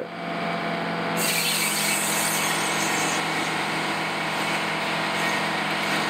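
Sawmill's large circular saw blade spinning and cutting through wood, a steady sawing noise over a low motor hum; the cut turns brighter and harsher about a second in.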